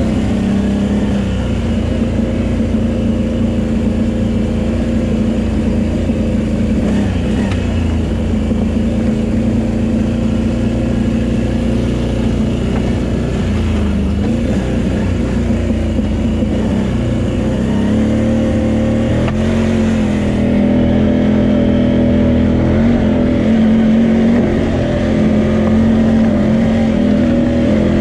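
Can-Am Renegade 800 quad's Rotax V-twin engine running close-up as the quad is ridden along a rough trail, its pitch rising and falling a little with the throttle and getting somewhat louder over the last third.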